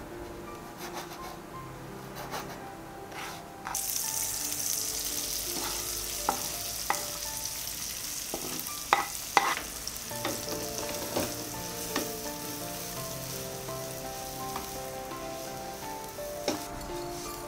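Food sizzling in a hot frying pan, starting suddenly about four seconds in, with a few sharp clinks of a utensil against the pan. Soft background music plays underneath.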